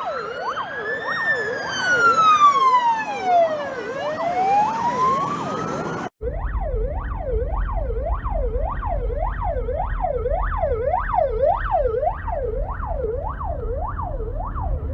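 Russian police car electronic siren. A fast yelp rises and falls about three times a second, and for the first six seconds a slower wail sweeping up and down is layered over it. After a brief cut at about six seconds the fast yelp carries on alone over a low rumble.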